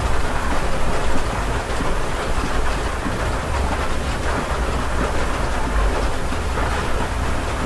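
Steady heavy rain heard from inside a house, a dense patter of drops with a deep low rumble underneath.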